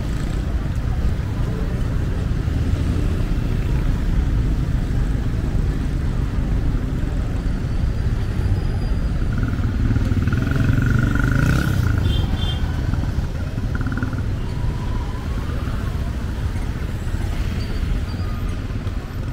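Street traffic: motorcycles and cars passing, a steady engine rumble with a thin high tone held for a couple of seconds around the middle.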